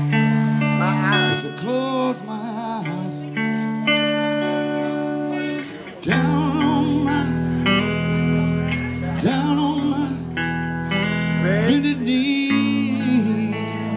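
Live blues-rock band: a man's voice singing over electric guitar with low bass notes underneath, at a slow tempo.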